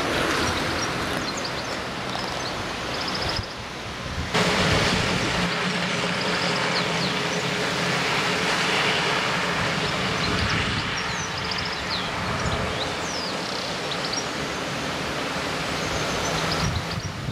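A large tanker lorry's engine running steadily with a low hum as it drives away along the lane, over a constant rushing noise, with birds chirping.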